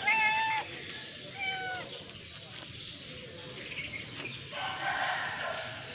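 Cat meowing: a loud meow at the start, a shorter one falling in pitch about a second and a half in, then a longer, rougher meow near the end.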